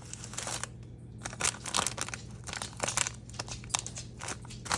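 Plastic food packaging crinkling as it is handled, a run of irregular crackles.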